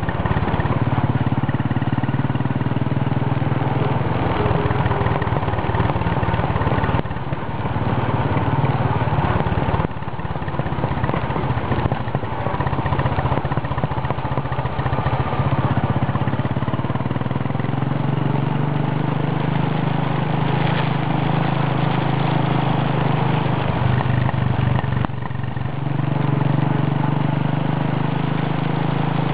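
Royal Enfield motorcycle's single-cylinder engine running steadily under way, heard from on board the bike, dipping briefly in level a few times.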